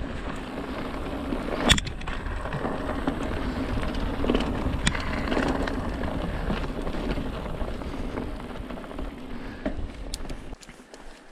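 Mountain bike riding over a dirt forest track: a continuous rolling rumble of knobby tyres on loose dirt, with the frame and drivetrain rattling and scattered clicks. A sharp knock, the loudest moment, comes about two seconds in, and the low rumble falls away near the end.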